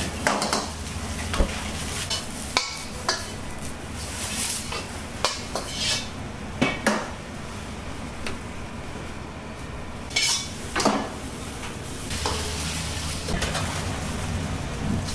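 Stir-frying in a wok: a metal ladle scraping and knocking against the wok at irregular moments, over food sizzling and a steady low rumble underneath.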